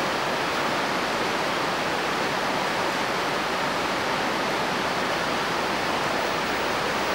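Steady, even hiss-like noise at a constant level, with no music or speech in it.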